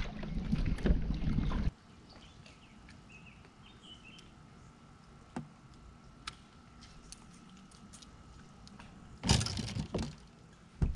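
Outdoor background on a fishing boat: loud rumbling wind noise on the microphone for the first couple of seconds, which stops suddenly. Then it is quiet, with a few faint clicks, until a short loud noisy burst about nine seconds in, as the fish is brought to the side of the boat.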